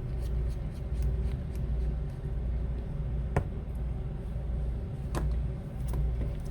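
Light clicks and taps of an iPhone being handled on a repair bench, the sharpest about three and a half and five seconds in, over a steady low hum.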